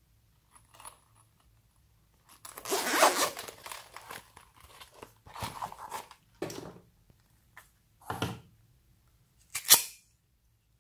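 Crunching and tearing sounds of things being handled and worked into slime, in separate bursts: a longer one a couple of seconds in, then shorter ones, with the sharpest near the end.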